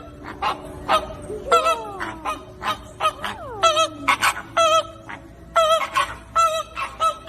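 A flock of flamingos honking: many short, nasal, goose-like calls overlapping, several a second, with two longer calls falling in pitch near the middle.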